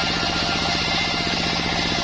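Sawmill's engine running steadily, with a fast, even pulsing beat and a constant low hum.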